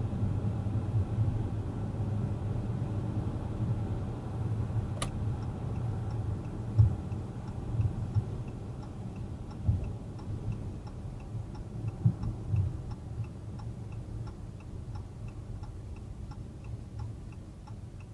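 Car cabin while driving: low road and engine rumble with a few irregular bumps, fading as the car slows. About five seconds in a steady light ticking starts, about two ticks a second, evenly spaced.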